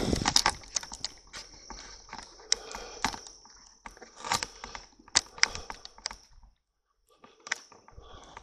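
Irregular clicks and knocks of footsteps and camera handling over a steady high-pitched insect trill. Everything drops out for a moment about two-thirds of the way through.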